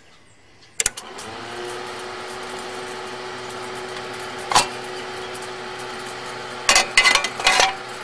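A switch clicks about a second in and the steam boiler's electric blower fan spins up, then runs with a steady hum, blowing air into the wood-pellet fire. Near the end a few metal clanks as the steel firebox door is shut.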